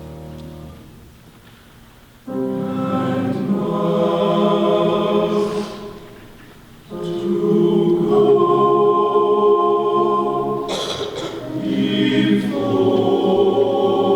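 Men's chorus singing sustained chords in three phrases. The first phrase starts suddenly after a short lull, and a brief pause follows it before the next.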